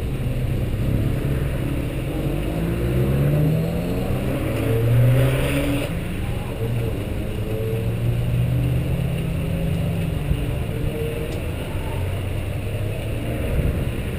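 Mazda MX-5 Cup race cars idling in pit lane, a steady low engine note. A few seconds in, an engine revs up in rising pitch, loudest about five seconds in, then settles back to idle.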